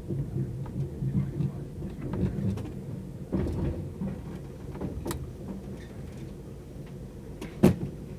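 Sleeper train carriage running at speed, heard from inside: a steady low rumble of wheels on the rails with scattered clicks and knocks from the track and carriage. The loudest is a sharp knock near the end.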